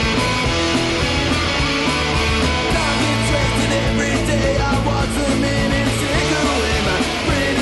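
Loud rock music with guitar and a singing voice.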